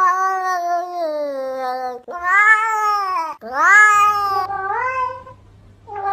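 Domestic cat meowing: four long, drawn-out meows, the first lasting about two seconds and falling in pitch, the third rising, with a short pause before the last begins near the end.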